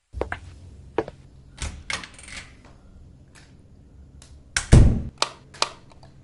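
An irregular series of sharp knocks and thuds, about a dozen, with the heaviest thud about five seconds in, over a faint low hum.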